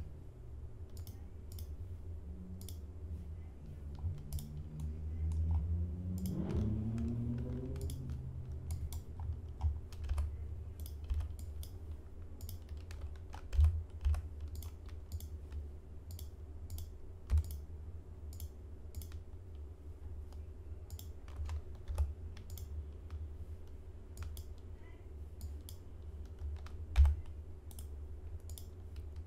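Computer keyboard keys and mouse buttons clicking sporadically over a steady low hum, with a few louder knocks. A short wordless vocal sound rises in pitch about five seconds in.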